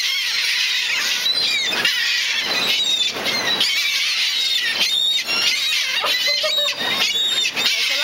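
A flock of gulls hovering close overhead, crowding in to be fed, with many high, overlapping calls at once.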